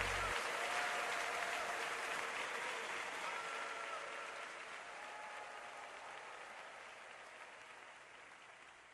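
A last low music note cuts off just after the start, leaving audience applause that fades steadily away, as at the close of a live recording.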